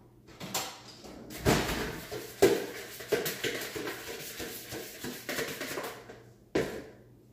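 Kitchen clatter: things being handled and set down at the counter, a run of knocks and rattles with the sharpest about two and a half seconds in and a last knock near the end.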